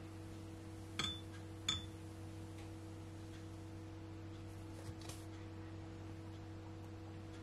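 Two light clinks of a spoon against a dish, each with a short ring, about a second apart, then a few fainter taps, over a steady low electrical hum.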